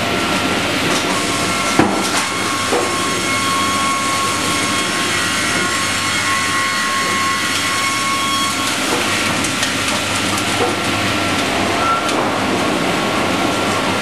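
Automated circular sawmill line running: roller and chain conveyors and their drives make a steady mechanical rumble with a steady whine. A sharp knock comes about two seconds in, and a lighter one shortly after, as lumber moves along the rollers.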